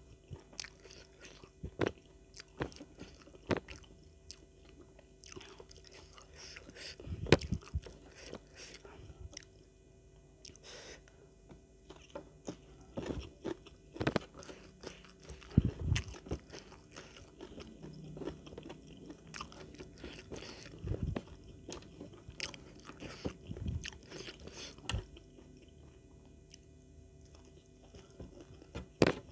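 Close-miked eating: irregular crunchy bites and chewing of raw lalapan vegetables with rice and sambal. A few bites are sharply louder, about seven seconds in and again around sixteen seconds.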